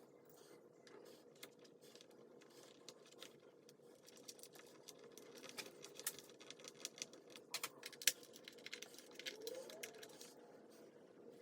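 Light clicks, taps and rattles of small hardware being handled, sparse at first and busier from about halfway, over a faint steady hum.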